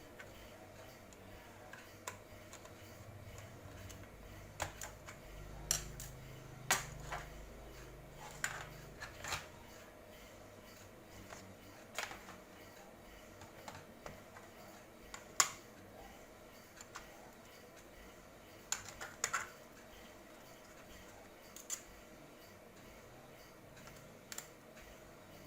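Irregular small clicks and taps of laptop parts and hardware being handled during a hard drive swap, about a dozen sharp ones spread out with quiet gaps between them.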